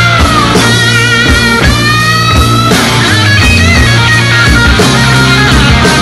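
Rock music: a lead electric guitar bending and sliding notes over a steady bass line.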